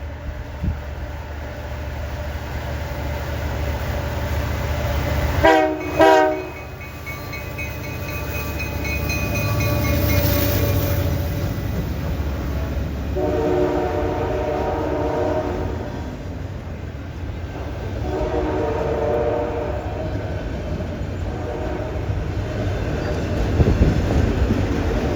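Freight train's diesel locomotives rumbling past on a curve. About six seconds in, the horn gives two short taps, followed by a few seconds of bell ringing. Two longer steady tones sound later.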